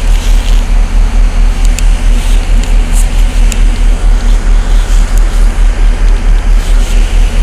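Vehicle engine idling, heard from inside the cabin: a steady low throb pulsing about five times a second, with a few faint clicks over it.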